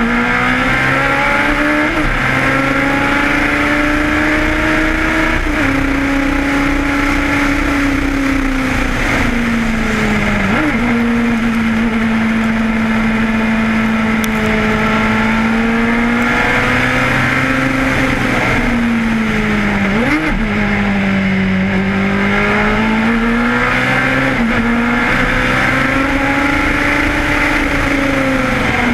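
Lotus 91 Formula One car's Cosworth DFV V8, heard onboard at racing speed, its note rising and falling through the corners and gear changes. A few brief, sharp spikes in revs come about two, five, ten and twenty seconds in.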